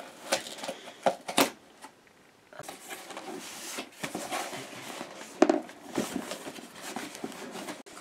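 Scissors slicing through packing tape on a cardboard box, with a few sharp cuts in the first second and a half. After a short pause, the cardboard flaps are pulled open and rustled.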